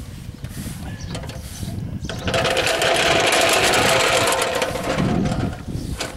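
A hand-pushed Rust-Oleum striping machine rolling past over rough, gravelly asphalt: a loud, fast rattle starting about two seconds in and fading out about three seconds later.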